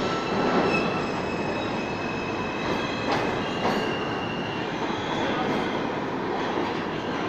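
R160A subway train pulling out and moving away along the track. A steady rumble runs under several high whining tones, and the sound slowly fades as the train recedes.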